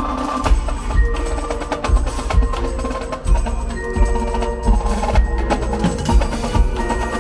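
Drum corps music in a percussion-heavy passage: rapid strikes on marimbas and other mallet keyboards over low drum hits.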